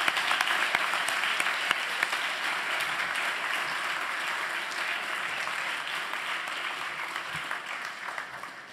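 An audience applauding: a steady crackle of many hands clapping, tapering off near the end.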